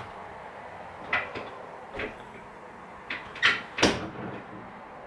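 Several short clicks and taps from makeup being handled, with two louder knocks about three and a half seconds in.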